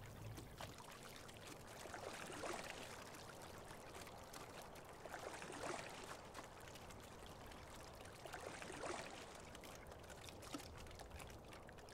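Faint water sounds from a single scull being rowed: oar blades and hull swishing through the water, swelling softly about every three seconds.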